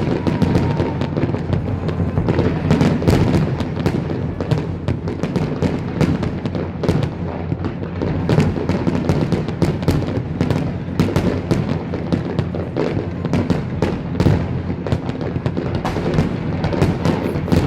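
Fireworks display going off continuously: a dense, rapid run of bangs and crackles over a steady low rumble of explosions.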